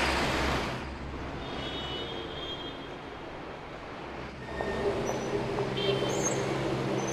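City street ambience: a steady wash of traffic noise with a low rumble. It eases after about a second and grows louder again about four and a half seconds in, with a few faint high squeals.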